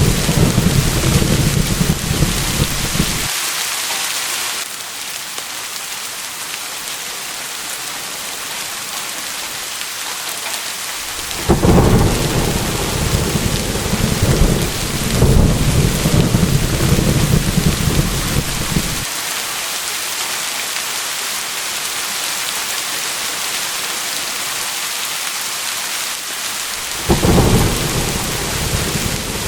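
Steady heavy rain hissing, with rolling thunder rumbling at intervals: a rumble in the first few seconds, a longer one from about twelve to nineteen seconds in, and another starting near the end.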